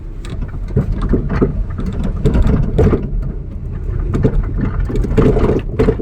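Fiat Punto driven on the road, heard from the cabin: steady road and engine rumble with irregular dull thuds from the rear suspension over bumps. The thuds are the sign of a worn rear shock-absorber mount pad, whose rubber and foam cushioning has broken up and lets the part shake up and down.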